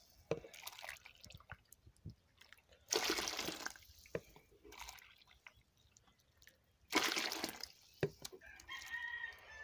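Hot water poured from a half-litre plastic measuring container into a tub of dough ingredients: two splashing pours, about three seconds and seven seconds in, with small knocks of the container between them. A fainter drawn-out animal call comes near the end.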